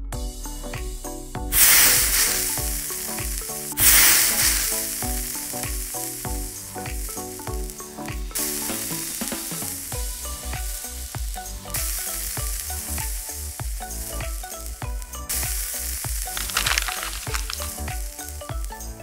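Egg omelette and bread slices sizzling on a miniature griddle, loud in several long stretches, with light clicks and scraping from a small metal spatula.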